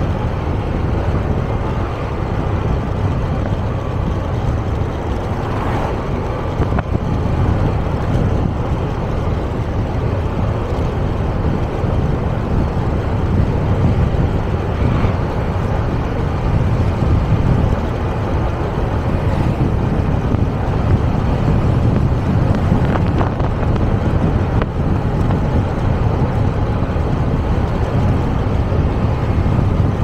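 Steady wind rush and road noise from a moving motor scooter, the wind buffeting the microphone over the scooter's running.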